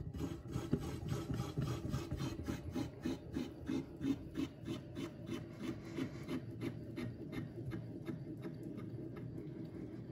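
Tensioning mechanism of a grip-strength testing rig being cranked, loading a heavy hand gripper's spring through a cable: a steady rasping with regular clicks, about four or five a second, that slow a little toward the end.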